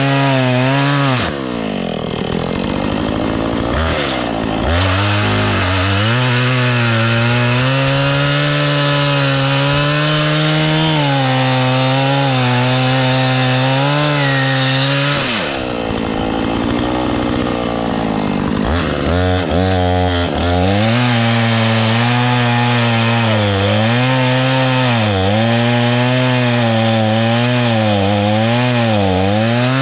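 Husqvarna two-stroke chainsaw cutting into a dead elm trunk. Its engine note holds under load and wavers up and down as the chain bites, and twice changes briefly as the cut is eased off and resumed. The chain is dull, which the owner says can be heard in the cutting.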